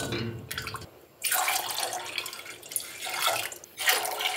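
Milk being poured into a pot of hot brewed tea, splashing and trickling, with a short break about a second in and a brief dip near the end.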